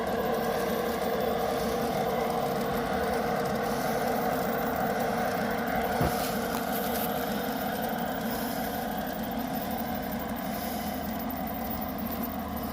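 G-scale model freight train running on garden railroad track: a steady whir of its motor and gears with wheel-on-rail noise, slowly growing fainter, with a single sharp click about six seconds in.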